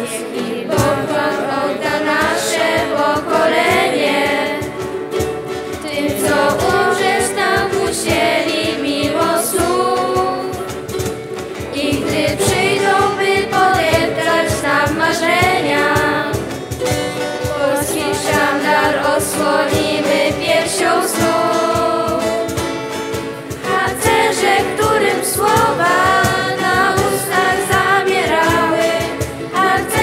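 A group of young singers singing a song together over instrumental accompaniment, several voices at once, without pause.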